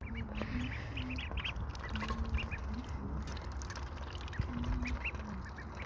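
Ducklings peeping: many short, high cheeps over a steady low rumble.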